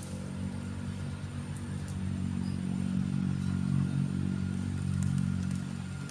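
A motor vehicle engine running steadily with a low hum, getting louder from about two seconds in.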